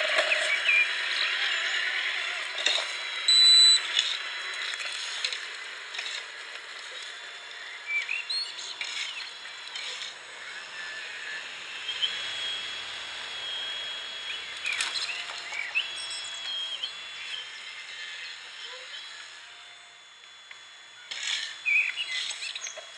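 Birds chirping over steady outdoor background noise, with short electric whines from the radio-controlled model excavator's motors as it digs and swings. One brief loud whine comes about three seconds in, and a longer stepped one from about halfway through.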